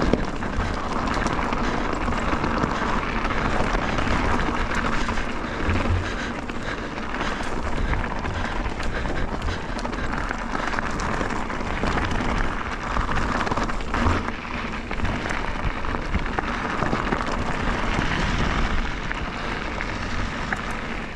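Mountain bike being ridden along a dirt and rock trail: a steady rush of wind and tyre noise, with occasional knocks and thumps from the bike over bumps.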